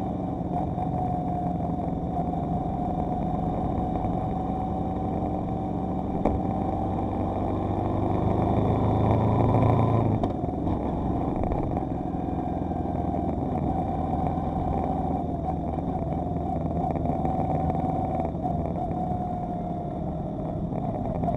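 Motorcycle engine running at road speed through bends. The sound builds and rises in pitch from about eight seconds in, then drops suddenly just after ten seconds, and settles back to a steady run.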